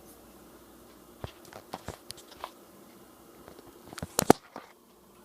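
Scattered light clicks and taps, then two or three sharper knocks about four seconds in, from objects being handled.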